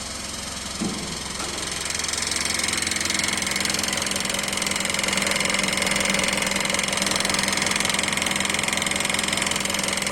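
Mitsubishi 4M41 3.2-litre diesel engine running with an unusual knock that does not follow the connecting-rod rhythm. The knock was traced to the balance shaft. The running gets a little louder about two seconds in.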